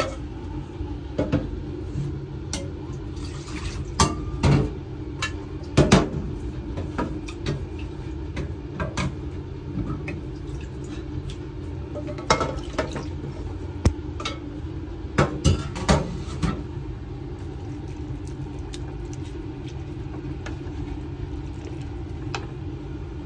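Cookware clattering: sharp knocks and clinks of a utensil against a cooking pot, in clusters over the first few seconds and again about halfway, over a steady low hum.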